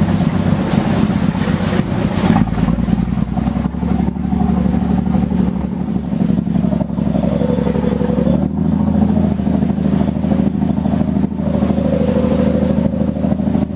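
Boat engine running steadily with a low, even drone; its note shifts slightly about eight seconds in.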